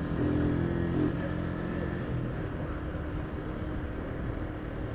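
Honda CG 150's single-cylinder four-stroke engine running while under way, its note steady for about the first two seconds and then quieter.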